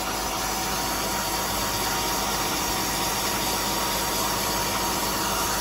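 Carpet-cleaning machine running with a steady hiss and low hum, unchanging in level.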